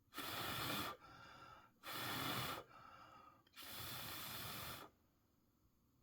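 A person breathing close to the microphone: three loud breaths out, each lasting under a second, with quieter breaths in between.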